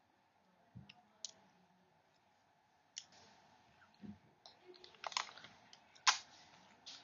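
Scattered small clicks and light taps from handling a white plastic iPhone charger, the sharpest click about six seconds in.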